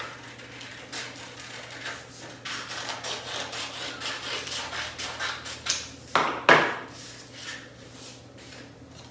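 Small scissors snipping through folded printer paper in a quick run of short cuts. A few louder paper rustles come a little past the middle.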